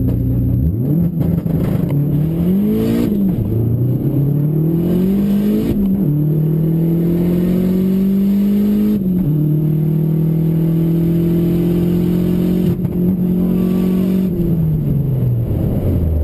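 Drag car's engine launching and accelerating hard down the strip. The revs climb in pulls that drop sharply between gears, hold high and steady, then fall away near the end as the driver lifts. This is the run the driver says shows an ignition stumble.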